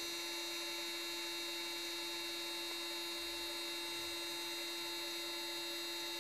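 TP Power 2450 kV brushless RC motor spinning unloaded at about 20,300 rpm on a motor analyzer during a kV test. It gives a steady electric whine with no change in speed, and it measures close to its rated kV.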